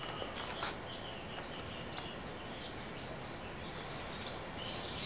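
Small birds chirping and twittering steadily in the background, with a couple of faint clicks.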